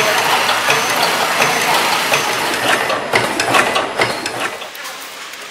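Automatic sachet filling and sealing packing machine running, its sealing jaws and linkages clicking and clacking in a steady repeating cycle over a continuous mechanical whir. Near the end the sound drops quieter and thinner.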